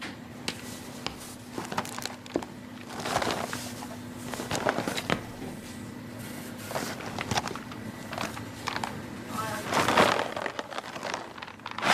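Scattered light clicks and knocks with some rustling, and indistinct voices rising twice, about three seconds in and near the end.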